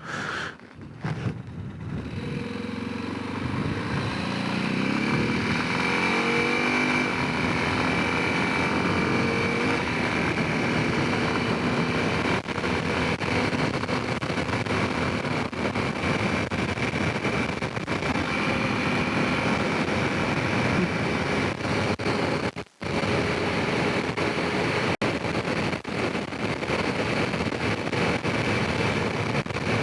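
Honda Rincon 650 ATV's single-cylinder four-stroke engine pulling away about two seconds in, rising in pitch over several seconds, then running steadily at riding speed with a thin high whine above it. The sound cuts out for a split second about 23 seconds in.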